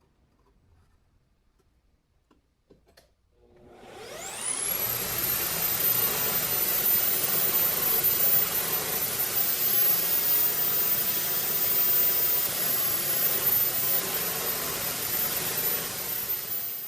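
A few faint clicks, then an electric power-tool motor switches on, spins up with a rising whine and runs steadily at full speed with a high-pitched whine, stopping abruptly near the end.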